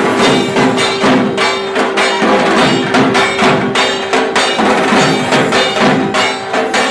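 Background music with a steady percussive beat over a held note.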